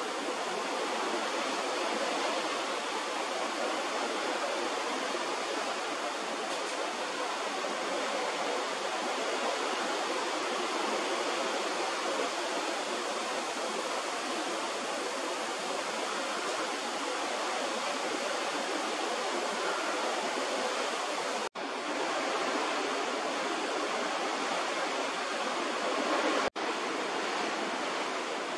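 Steady rushing of wind and sea on the deck of a ship under way. It cuts out briefly twice, about 21 and 26 seconds in.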